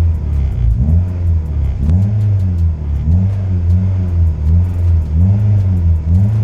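Background music with a deep bass line that slides up and down in a repeating pattern about once a second, over a steady quick hi-hat tick.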